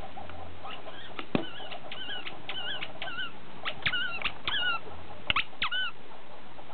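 Squeaky rubber ball squeaking over and over as a dog bites down on it, in two quick runs of short, wavering high squeaks with a brief pause between them and a few sharp clicks.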